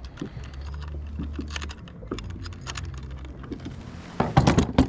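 Small clicks and light metallic jingling from a handheld digital fish scale and its hook being handled. About four seconds in there is a burst of louder clattering.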